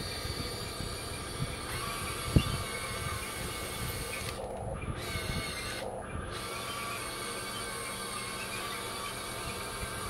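Huina 1580 RC excavator's small electric motors and gearboxes whirring steadily. There is a sharp knock a couple of seconds in, and the high whine drops out twice, briefly, near the middle.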